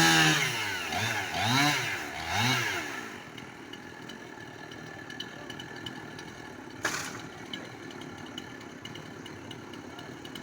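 Chainsaw engine revved: a loud rev falling away at the start, then two short blips a second apart, each rising and falling in pitch, before it drops back to a quieter idle. A single sharp knock about seven seconds in.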